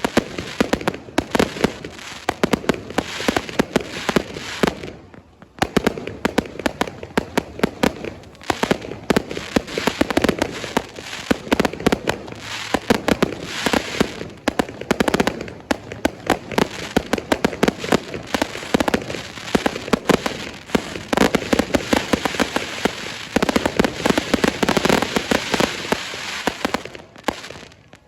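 Fireworks going off in dense volleys of rapid bangs and crackles, with a brief lull about five seconds in and another near the end.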